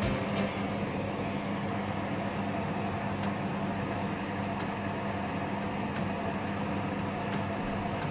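Chicken simmering in broth in a pan on a gas stove, with scattered light pops, over a steady mechanical hum with a constant low tone.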